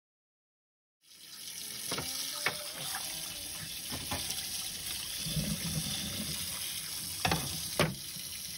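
Tap water running steadily onto the metal plates of a hot sandwich maker in a metal sink, starting about a second in. A few sharp clanks of the plates knock through it, the loudest two near the end.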